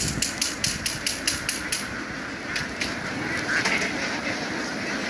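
A flock of ducks quacking. A quick run of sharp clicks or taps, about five a second, fills the first two seconds.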